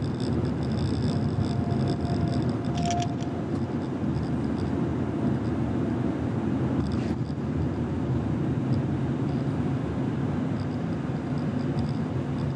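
Car driving along: a steady rumble of engine and tyre noise, with faint high tones above it and a couple of light clicks about three and seven seconds in.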